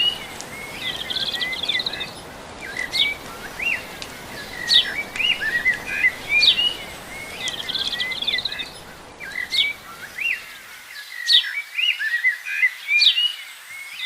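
Songbirds chirping and trilling in a short phrase that repeats about every two seconds: a sharp high note, a buzzy trill, then quick chirps. A steady low background hiss underneath cuts out about ten and a half seconds in.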